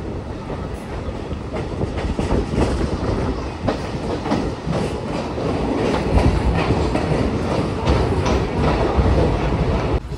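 Passenger train running at speed, heard from an open coach doorway: a steady rumble and rush of wheels and air, with a rapid, irregular clatter of wheels over the rail joints.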